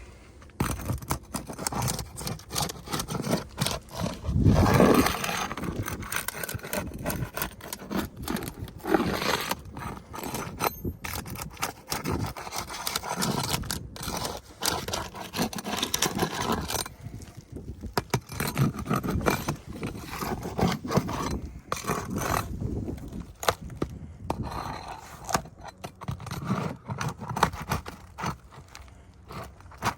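A metal pry tool scraping and clicking against gritty asphalt shingles as they are worked loose and pried open to reach the nails. There are irregular scrapes and knocks throughout, with a louder burst about five seconds in.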